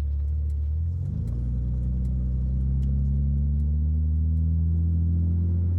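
A 1964 Chevrolet Corvair Monza's air-cooled flat-six engine heard from inside the cabin while driving, its note stepping up about a second in and then rising slowly as the car gathers speed.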